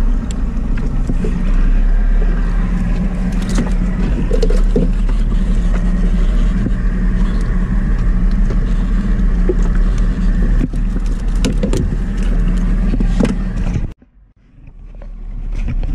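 A small boat's engine running steadily with a low hum, with a few light clicks of gear being handled. The engine sound cuts off suddenly near the end.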